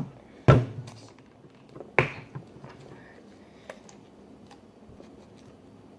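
Slime being mixed in a bowl: a few sharp knocks and clicks, the loudest about half a second and two seconds in, then only small scattered ticks.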